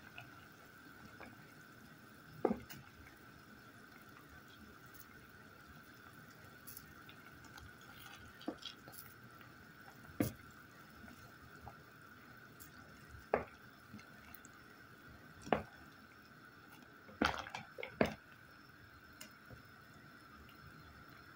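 A utensil pressing and mashing apple pieces and raisins in a stainless steel pot of simmering water: scattered short knocks and splashes, about seven of them, over a faint steady high-pitched hum.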